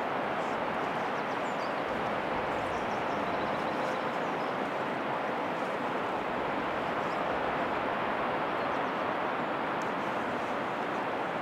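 Steady, even rushing outdoor noise, with a few faint high bird chirps now and then.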